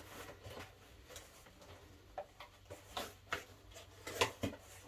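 Scattered light clicks and soft rustling as new curtains are pulled off their packaging and handled, with the sharpest clicks a little past the four-second mark.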